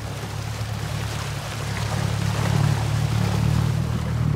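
Boat engine running with a steady low hum, water rushing and splashing along the hull; the engine grows a little louder about two seconds in.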